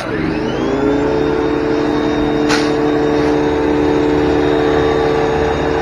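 Electric pressure washer switching on and running with a steady whine, over the steady running of a portable generator. There is a sharp click about two and a half seconds in.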